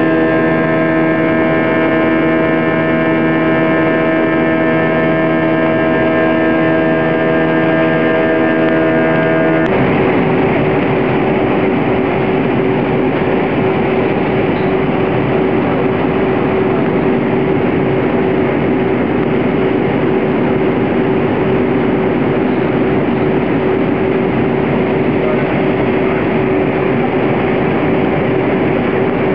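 Airbus A320 cabin noise heard from a seat just ahead of the right IAE V2500 turbofan engine: a steady jet drone carrying several held tones over rushing air. About ten seconds in it changes abruptly to a denser rush of airflow with one steady hum.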